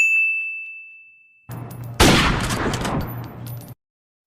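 An editing-style ding rings once and fades. A low hum then starts, and a loud noisy blast-like burst breaks in about two seconds in and dies away over about a second and a half.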